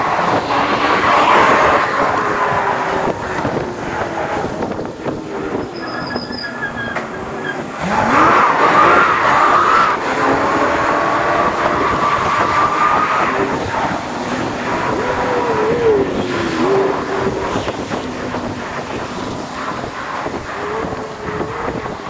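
City street traffic heard from a moving electric scooter, played back sped up, so engines and tyres slide quickly up and down in pitch. A loud rising sweep from a passing vehicle comes about eight seconds in.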